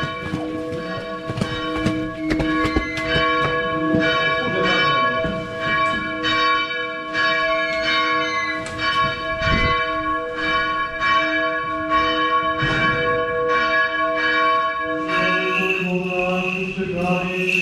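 Church bells ringing, struck about twice a second so that several tones keep sounding together. About 15 seconds in, the bells give way to a sustained chant.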